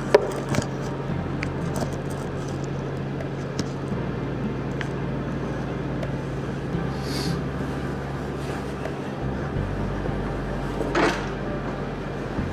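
MIG welding arc crackling steadily over a low, even hum from the welding machine, as the bead is laid with a whip-and-pause motion. There is a sharp crack right at the start and a brief louder hiss about eleven seconds in.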